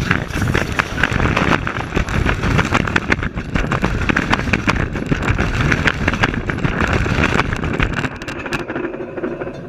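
A train rolling directly over the rails close by: a loud rumble with rapid clanking and clicking of steel wheels on the rail. It eases off near the end as the train clears.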